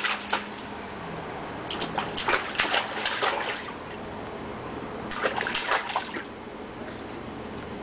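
A toddler's hands slapping and splashing the water of a shallow inflatable paddling pool, in two bouts of quick splashes: one from about two seconds in, lasting under two seconds, and a shorter one about five seconds in.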